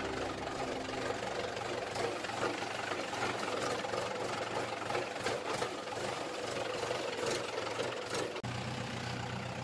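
Farm tractor's diesel engine running as the tractor drives along a rough dirt track, with a few short knocks.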